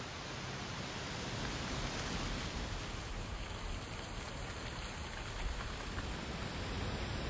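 Wind blowing through autumn trees, with dry leaves rustling in a dense, crackly hiss over a low rumble of wind. It swells slightly about two seconds in.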